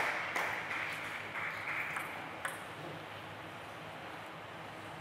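Table tennis ball bouncing in quick repeated pings, about two a second, which stop about halfway through. Then comes the steady hush of a large hall.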